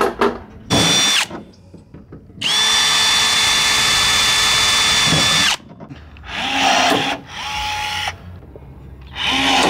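Cordless drill running in several bursts while drilling holes through a hood vent's flange into a car hood. The longest run is a steady high whine of about three seconds, with shorter runs before and after it.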